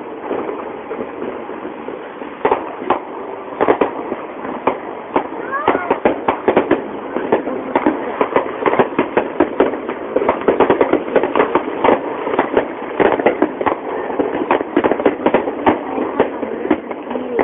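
Fireworks display: many aerial shells bursting in quick succession, the bangs coming thicker from about five seconds in.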